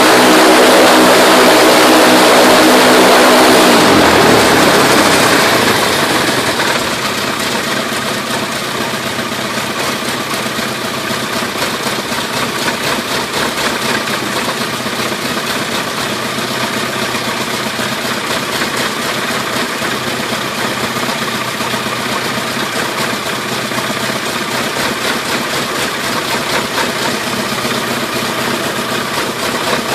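MWfly aircraft engine running on a test bench after assembly, first at high speed. About four seconds in it is throttled back, its pitch and level falling over a couple of seconds to a steady idle.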